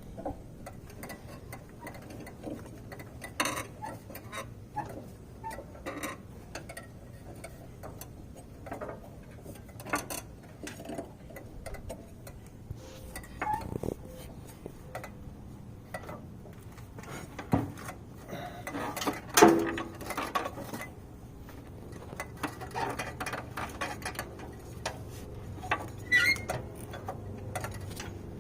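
Irregular clicks and light metallic knocks of hands working a mower drive belt around the deck pulleys and over a metal brace, with a louder clank about two-thirds of the way through.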